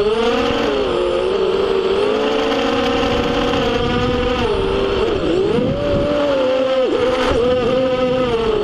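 FPV racing quadcopter's electric motors and propellers whining steadily, the pitch wavering up and down with the throttle, with a sharp drop and recovery about five seconds in and again near the seven-second mark.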